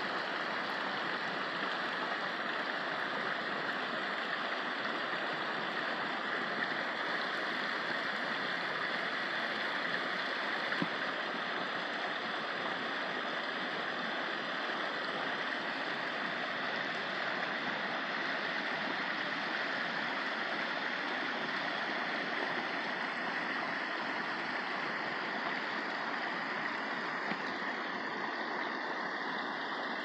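A shallow mountain creek running over rocks, a steady, even flowing-water sound.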